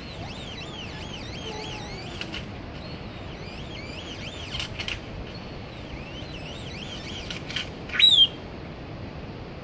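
Great-tailed grackle calling: a run of quick whistles that rise and fall, broken by a few sharp clacks. About eight seconds in comes a loud harsh call that ends in a falling whistle.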